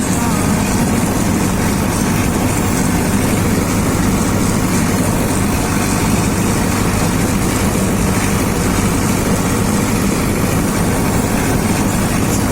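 An engine running steadily with a low, even hum and no change in speed.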